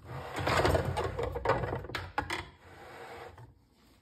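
Plastic gun-cleaning vise being moved and set up on a workbench: plastic clattering and scraping for a couple of seconds, with a few sharp clicks around two seconds in, then quieter handling.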